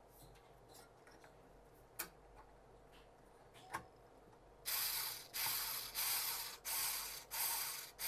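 Two light clicks, then a ratcheting, rasping mechanism worked in five strokes of about half a second each, starting a little past halfway.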